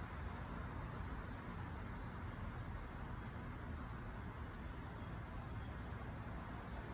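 Steady outdoor background noise, a low rumble like distant road traffic, with faint high chirps from birds about once or twice a second.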